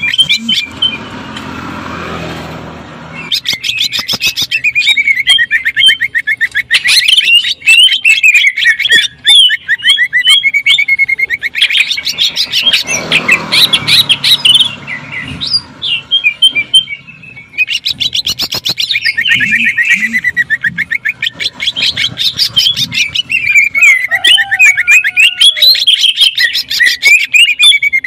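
Green leafbird (cucak ijo) singing a loud, continuous stream of very fast chattering notes, with rapid rattling runs of the kind keepers call 'sewing machine' shots. The song breaks off briefly about two seconds in, then carries on.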